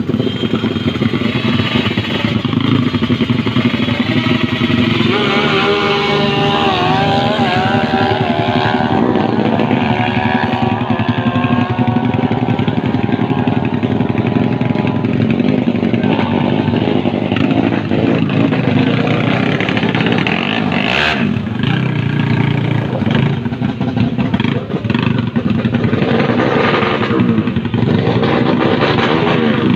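A 150cc automatic-scooter drag bike's tuned engine running loud and steady at the start line. Its pitch swings up and down between about five and nine seconds in. There is a single sharp crack about twenty-one seconds in.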